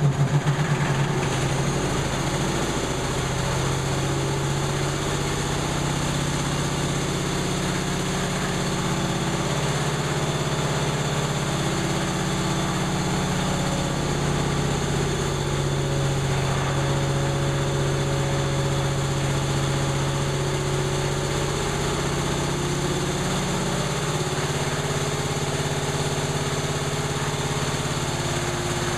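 1930 Atlas Diesel type C2DKV monoblock compressor running steadily just after starting, its speed wavering a little. Loud regular beats in the first second settle into the even run.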